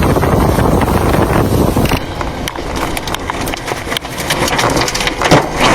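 Storm wind rumbling on the microphone. About two seconds in it switches abruptly to heavy rain beating on hard surfaces, a dense patter of sharp ticks.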